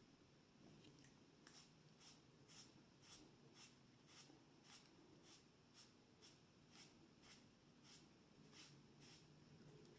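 Near silence with faint, regular ticking, about two ticks a second.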